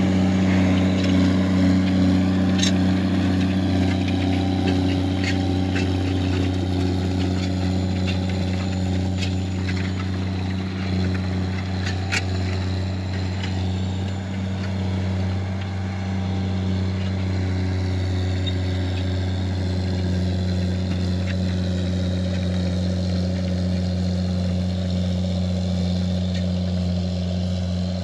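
Tractor engine running steadily with a low, even hum, with a couple of faint sharp clicks about two and a half and twelve seconds in.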